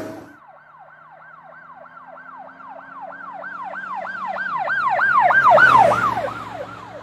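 Siren in a fast yelp, sweeping up and down about four times a second over a low engine-like drone. It swells to its loudest about five to six seconds in, then fades, its pitch dropping a little as it passes.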